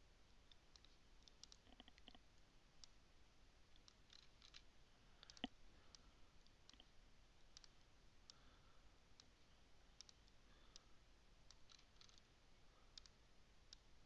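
Faint, irregular clicks of a computer mouse against near silence, with one sharper, louder click about five and a half seconds in.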